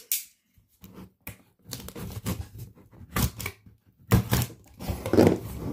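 Cardboard box being cut open at its taped seal: irregular scratchy cuts and knocks, louder and thicker over the last second and a half or so.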